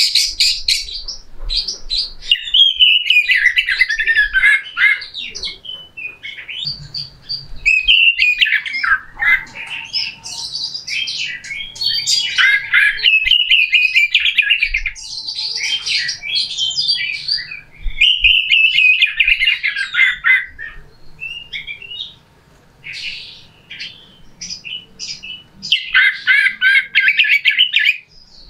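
Oriental magpie-robin (kacer) singing a harsh song of rapid, scratchy chattering phrases and quick whistles, in loud bursts several seconds long with short breaks. A little past the middle the song drops to a few scattered, quieter notes before a last loud burst near the end.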